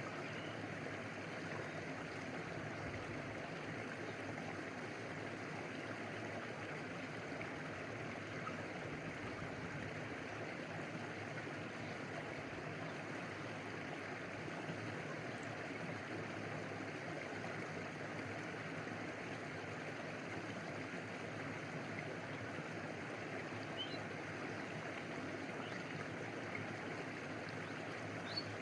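Stream water flowing, a steady, unbroken rush of water.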